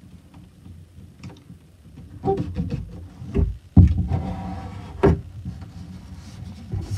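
Glossy magazine paper being handled, rolled and pressed flat by hand on a cutting mat: rustling and crinkling with scattered knocks. The loudest is a low thump about three and a half seconds in, and a sharp click follows about five seconds in.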